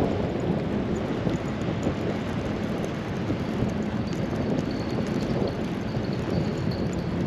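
Wind buffeting the microphone: a steady rushing noise, heaviest in the low range, that rises and falls slightly without a break.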